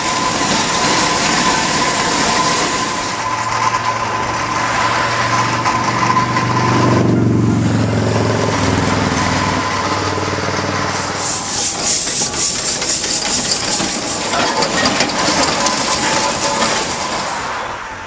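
A Fowler AA7 steam ploughing engine running along a road, hissing and rattling on its steel wheels. Then a passing vehicle's engine note falls in pitch about seven to nine seconds in, followed by a dense rattle of road traffic.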